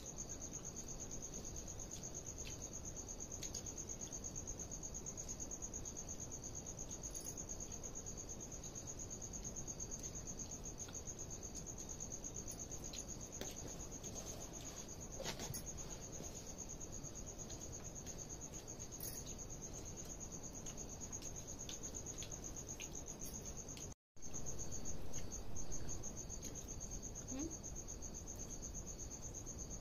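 Crickets chirping in a steady, unbroken high trill. It is cut off for an instant about 24 seconds in, and a few faint clicks come in between.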